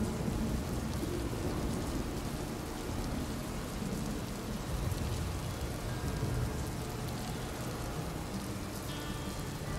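Steady rain from a recorded rain ambience, with a deep rumble underneath. A faint tune begins to come in near the end.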